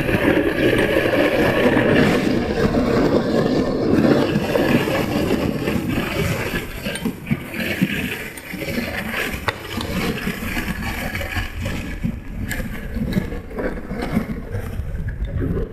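Dog sled moving over snow: a steady rushing scrape of the runners on the snow, mixed with wind on the microphone. It is louder for the first several seconds, then eases.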